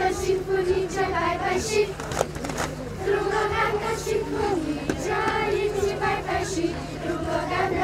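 A group of children singing a song together, all on one melody line with long held notes.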